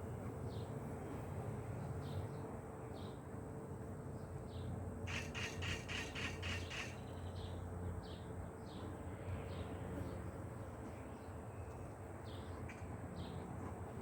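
Honeybees buzzing as a steady low hum around the open hive. Over it a bird gives short high chirps over and over, and a harsh rapid chatter for about two seconds near the middle.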